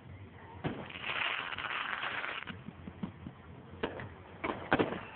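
Aerial firework shells bursting overhead: a sharp bang, then a second or so of hissing crackle, then three sharp bangs in quick succession near the end.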